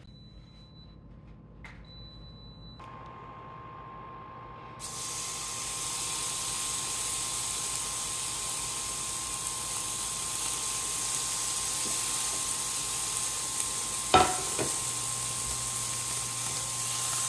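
Beef skirt steak sizzling on the hot grill grate of a Gourmia GGA2100 smokeless indoor grill. The sizzle starts suddenly about five seconds in and holds steady over a faint steady whine, with a single clink near the end.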